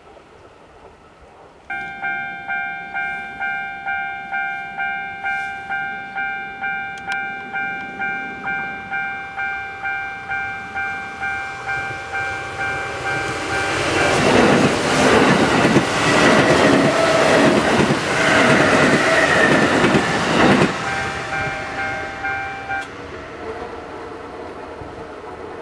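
Japanese level-crossing warning bell switches on about two seconds in and rings in a steady, quick, regular beat. Partway through, a Kintetsu electric commuter train passes on the near track with loud wheel clatter over the rail joints for about seven seconds. The bell stops a couple of seconds after the train has gone.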